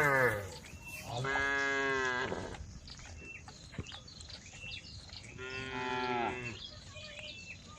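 Cows mooing: the end of one call at the start, then two long, drawn-out moos, one about a second in and one about five seconds in.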